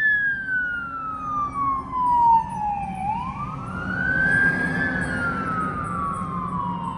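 Emergency vehicle siren on a slow wail. It falls slowly, rises again about three seconds in, then falls once more.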